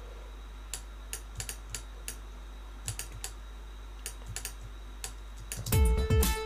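Scattered single clicks of a computer mouse as envelope points are placed, over a low steady hum. About five and a half seconds in, a drum loop run through a comb filter and delay starts playing, with low kick thumps and a ringing pitched tone.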